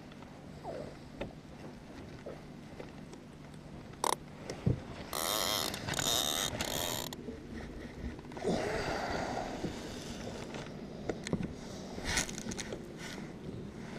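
Baitcasting fishing reel being worked: scattered clicks and knocks, with a whirring hiss about five to seven seconds in and another about nine seconds in.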